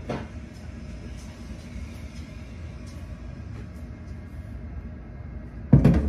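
A steady low rumble with a click at the start, then a short heavy thud near the end.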